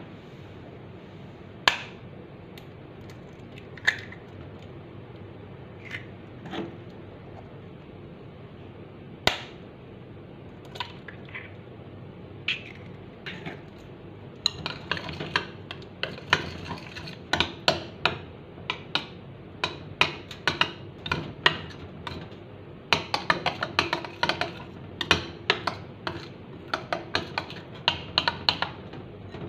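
Metal spoon clinking against a ceramic bowl: a few scattered taps at first, then from about halfway in a fast run of repeated clinks as eggs are beaten in the bowl, broken by a short pause about three quarters in.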